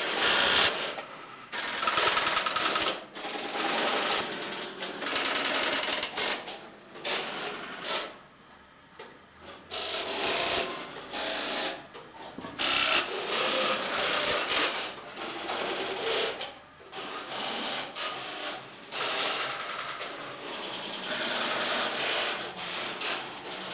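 Tesla P51 electromechanical telephone exchange switching: selectors and relays clattering and chattering in irregular bursts, with a couple of short lulls.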